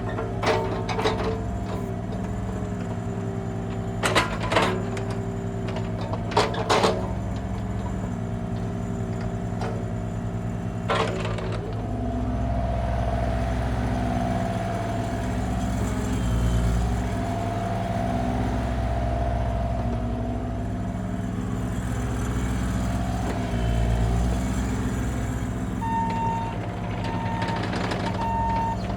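Bobcat E35i mini excavator's Kubota diesel engine running while the machine is operated, with several sharp clunks in the first ten seconds or so. From about twelve seconds in the engine note swells and dips as it takes hydraulic load, and a repeating beep starts near the end.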